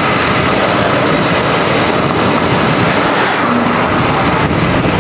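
Loud, steady rushing noise, spread evenly from low to high pitches, with no let-up.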